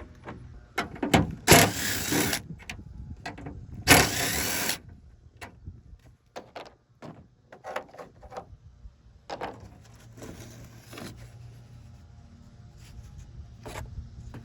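A handheld power driver whirs in two short bursts about two seconds apart, backing out the tailgate panel bolts. Scattered clicks and knocks of tools and hardware on the metal tailgate follow, with a weaker spell of whirring later.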